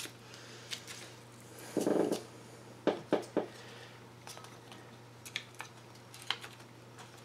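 Light clicks and taps of the Mossberg Blaze .22 rifle's plastic and metal parts being fitted back together by hand, with a brief scuffing handling noise about two seconds in.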